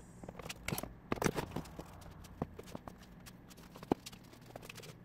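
Scattered light clicks and knocks of a metal snap-fastener crimping tool and a vinyl soft top being handled on a workbench, a few sharper taps among them.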